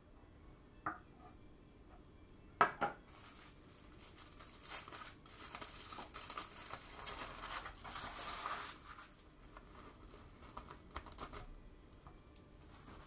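Plastic cling wrap crinkling and rustling for several seconds as a rolled omelette (tamagoyaki) wrapped in it is shaped and handled. Two light knocks come first, the second the sharpest sound; a few soft ticks follow the rustling.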